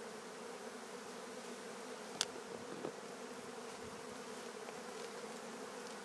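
A honey bee swarm buzzing, a steady droning hum of many bees, with a single sharp click about two seconds in.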